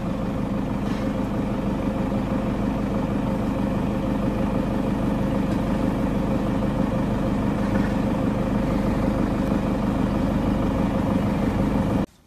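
Small engine of a utility vehicle running steadily at an even pitch, stopping suddenly near the end.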